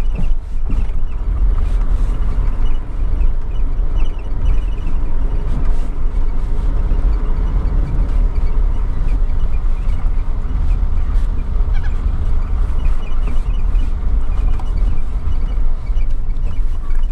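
Vehicle driving slowly, a steady low rumble of engine and road noise.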